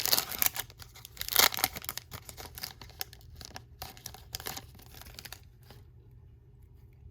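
Foil wrapper of a Panini Select trading card pack torn open and crinkled, loudest about a second and a half in; the rustling dies away after about five seconds.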